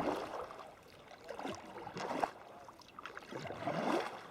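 Sea kayak paddle strokes in calm water: a few swishing splashes, about one every second and a half, with water dripping and trickling between them.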